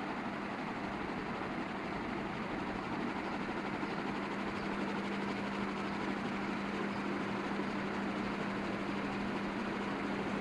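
KDK ceiling fan motor running with a steady hum, one constant low tone over an even whoosh. The hum comes from the fan running on low supply voltage.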